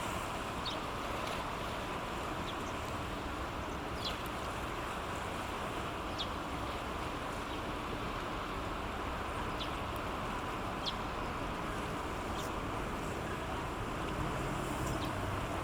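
Steady outdoor hiss, with the faint sound of the strait and a passing cargo ship, and no clear engine beat in it. A few short, high chirps come now and then, about five or six of them.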